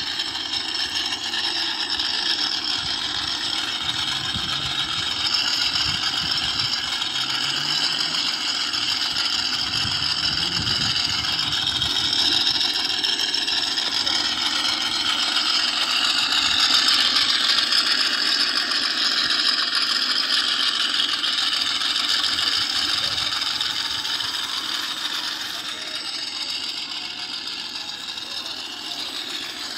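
Electric motor and gearbox of a 1/10-scale RGT 86100 RC rock crawler whining steadily as it drives over dirt, with some rattle from the chassis. It is a little louder around the middle and eases off near the end.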